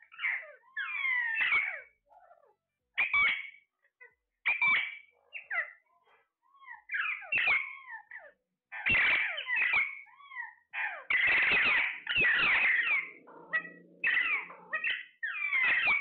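Alexandrine parakeets calling: short calls sliding up and down in pitch, coming in runs with brief gaps between. They come thickest about two thirds of the way through, where several overlap.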